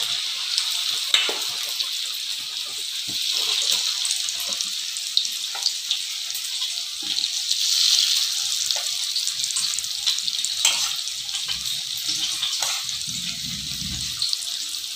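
Marinated chicken pieces deep-frying in hot oil in a kadai, a steady bubbling sizzle. A few short clicks of a utensil come through as more pieces are dropped in and moved about.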